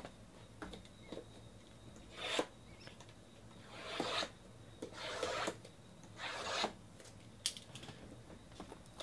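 Cardboard card boxes sliding and scraping across a table and against each other as they are moved and restacked: four short rasping swishes, each under a second, with a few light taps in between.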